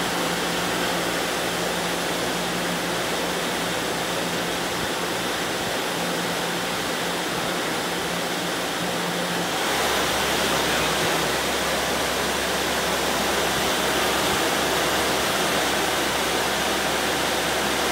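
Hyundai-Kia SKT-160A CNC lathe spindle turning its 6-inch 3-jaw chuck with bar stock in it, running free with no cutting, a steady rushing whir with a low hum under it. About ten seconds in the sound steps up, louder, with a change in the hum.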